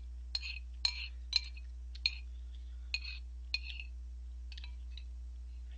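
Metal spoon clinking against a glazed ceramic bowl while the last of the jjamppong ramen broth is scooped up: about nine irregular clinks that stop about five seconds in. A steady low hum runs underneath.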